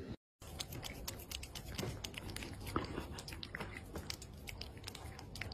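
A cat licking and chewing at a squeeze-tube lickable cat treat: a run of quick, irregular wet clicks and smacks over a faint low hum.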